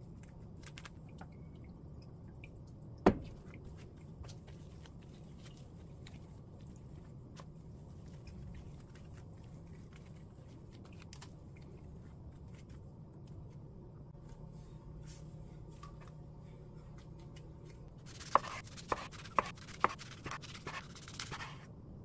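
Knife slicing a gimbap roll on a wooden cutting board: a quick run of about five sharp knocks near the end as the blade meets the board. Before that, faint handling of the roll over a low steady hum, with one sharp knock about three seconds in.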